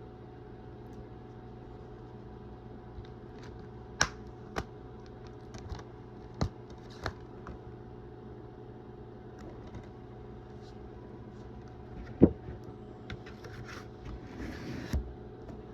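Scattered sharp plastic clicks and taps from handling a DVD case and its discs, with the loudest click about three quarters of the way through and a short scratchy rustle near the end, over a steady background hum.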